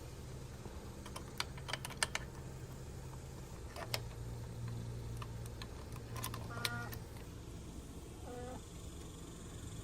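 Scattered light plastic clicks and taps from handling and adjusting a plastic RV sewer hose connector and its bracket, over a steady low hum. A couple of brief squeaks come about two-thirds of the way in and near the end.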